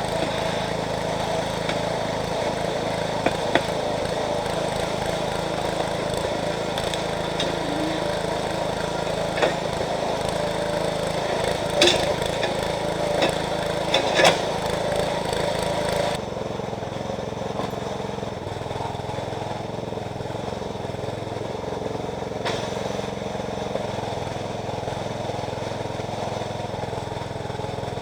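Small engine of a towable hydraulic backhoe running steadily while digging, with a few sharp knocks partway through. The sound changes and drops a little in level about halfway through.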